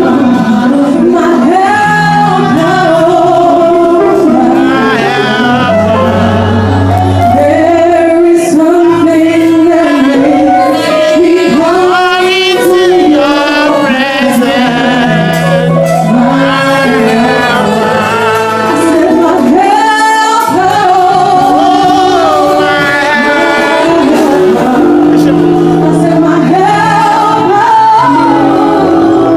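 Voices singing a church song in a large hall, with wavering sung notes over sustained low instrumental notes.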